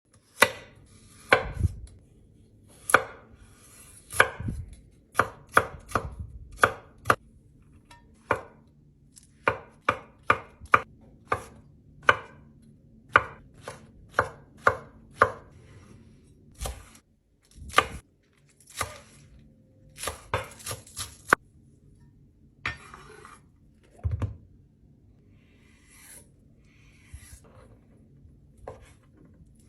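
Knife chopping vegetables on a cutting board: single sharp chops at an uneven pace, roughly one or two a second, with short pauses between runs.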